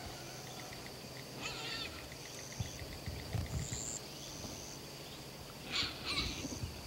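Birds chirping in short high calls over a steady high drone, with a few soft low thumps near the middle.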